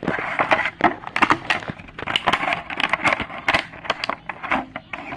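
Plastic toy packaging crinkling and crackling as it is handled and opened, with a quick run of sharp crackles and rustles.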